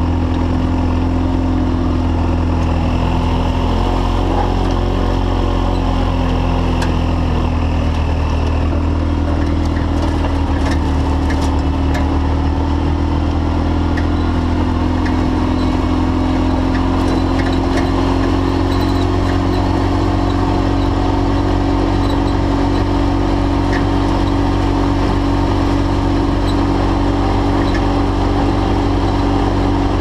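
A motor vehicle's engine running steadily, its pitch rising slightly about a third of the way in and then holding even, with scattered light clicks and rattles over it.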